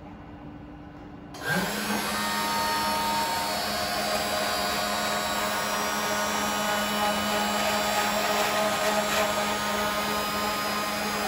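Spindle motor of a home-built wooden Arduino-GRBL CNC router spins up with a short rising whine about a second and a half in, then runs at a steady pitch while the bit cuts into MDF.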